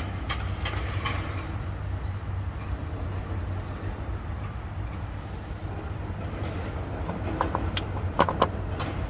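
Scattered metal clicks and knocks, bunched near the end, as a starter motor is worked up into its mounting under a car, over a steady low hum.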